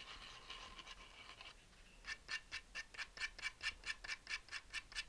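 Cut end of a small aluminum tube being sanded on fine-grit sandpaper to smooth it and take off the burr: a continuous soft rasping, then from about two seconds in quick back-and-forth scratching strokes, about five a second.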